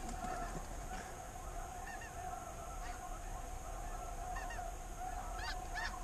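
Snow geese calling: many short, overlapping honks from a flock, coming thicker in the second half.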